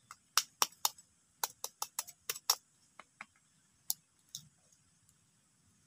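An egg tapped repeatedly against a knife blade to crack its shell: a quick run of about a dozen sharp taps in the first two and a half seconds, then two more near the four-second mark as the shell is broken open.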